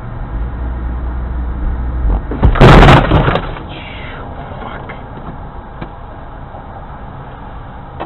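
Car collision recorded from inside a dash-cam car: a loud crash about two and a half seconds in, lasting under a second, over steady road and engine noise.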